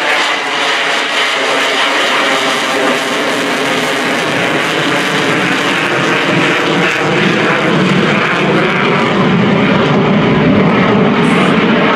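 F-35C Lightning II's single F135 afterburning turbofan running in afterburner as the jet turns away overhead: a continuous loud jet noise that grows slightly louder and deeper over the last few seconds.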